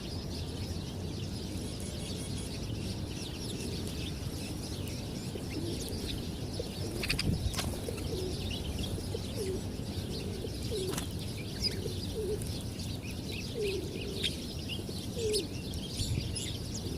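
Pigeons cooing in short, low calls that repeat from about five seconds in, with many small birds chirping high throughout.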